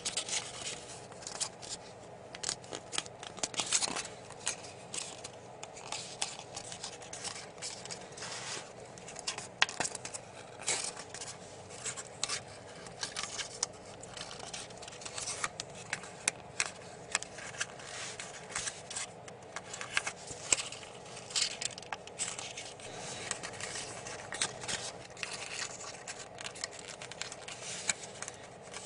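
Origami paper crinkling and rustling under the fingers as it is folded, pinched and slid into place, with many irregular small crackles.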